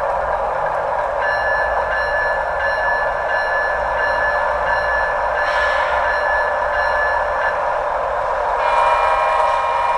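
LokSound decoder in an HO-scale GE ET44C4 model locomotive playing its diesel locomotive sound through the model's small speaker. Steady tones come in about a second in and fade later, and a different set of tones starts near the end.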